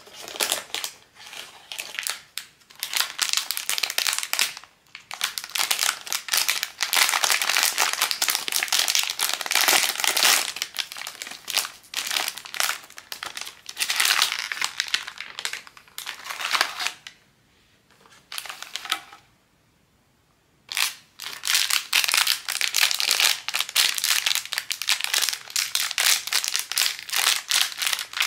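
Plastic blind-bag packaging crinkling as it is handled and opened, in rapid bursts. The crinkling stops for a few seconds about two-thirds of the way through, then starts again.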